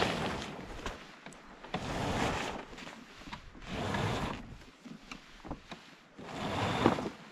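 Hobie Tandem Island sailing kayak moving through the water: water washes along the hulls in swells about every two seconds, with small knocks and creaks from the boat.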